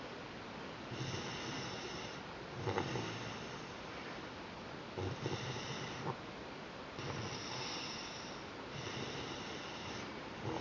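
Laryngomalacia stridor: noisy, rasping breaths with a high-pitched, musical whistle, five breaths about two seconds apart. The airway noise persists despite supraglottoplasty and adenotonsillectomy.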